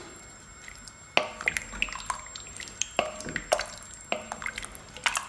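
A wooden spoon stirring a soupy pot of rice, chicken and stock in an enamelled pot: liquid sloshing and dripping, with about nine irregular light knocks of the spoon against the pot, a few of them ringing briefly.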